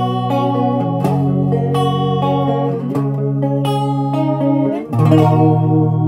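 Electric guitar played clean through an MXR Black Label Chorus pedal switched on, picking a run of chords. A new chord is struck about five seconds in and left ringing.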